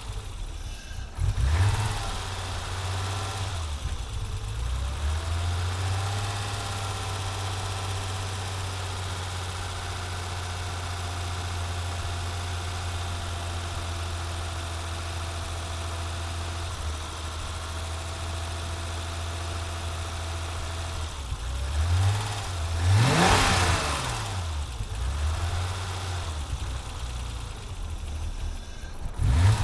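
1987 BMW E30 325is's 2.5-litre inline-six idling with a cold-start misfire. It is blipped briefly about a second in, revved up and back down about three-quarters of the way through, and blipped once more at the very end.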